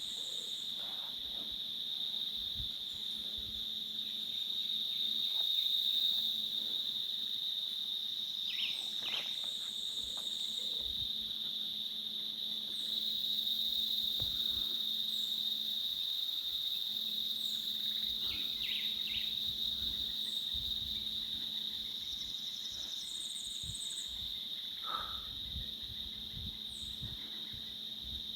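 Steady high-pitched insect chorus trilling without a break, with a few short chirps scattered through it.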